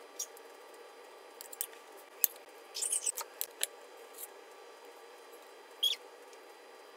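Kitchen tongs handling fried potato slices and placing them over chicken in a paper-lined pot: scattered small clicks and rustles, a cluster about three seconds in, and one more sharp sound near the end.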